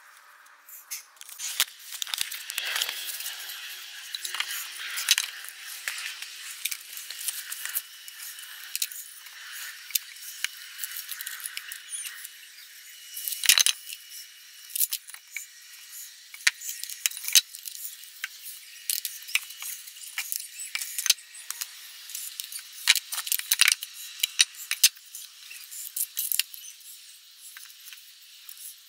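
Irregular light clicking and rattling of small hard objects, with one louder knock about thirteen and a half seconds in.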